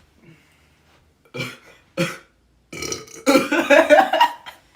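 A person belching, a long loud burp of about two seconds that wavers in pitch, starting near three seconds in, after chugging a drink. Two short sounds come just before it.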